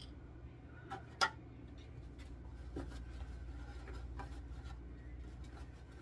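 Cleaning the inside of a refrigerator by hand: light rubbing and scattered small ticks as it is wiped, with one sharp click about a second in, over a steady low hum.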